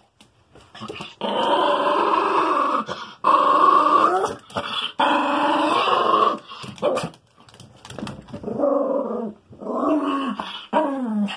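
Small dog vocalizing: three long drawn-out calls, then several shorter ones whose pitch bends up and down.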